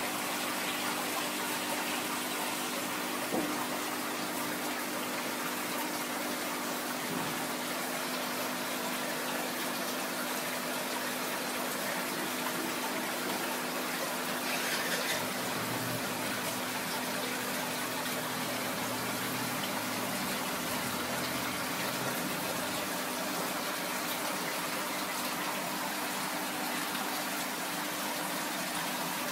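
Steady rush of water circulating through aquarium tanks, with a constant low hum from the pumps.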